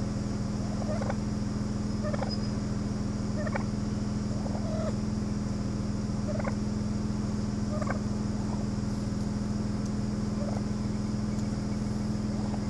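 Wild turkeys calling with short, sharp notes repeated every second or two, over the steady low hum of an idling car engine.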